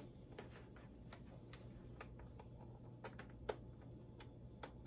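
Faint scattered clicks and taps from handling a USB keyboard and plugging its cable into the side ports of an iMac G5, one a little louder about three and a half seconds in, over a faint steady hum.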